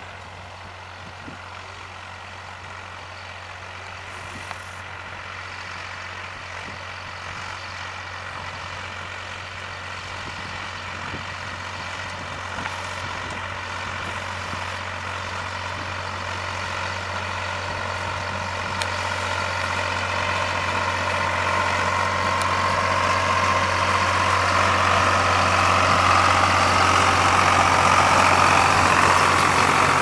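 Fendt 303 tractor engine running steadily under load while pulling a Claas Liner 2700 twin-rotor grass rake, with a steady low drone; it grows steadily louder as the tractor and rake come up close.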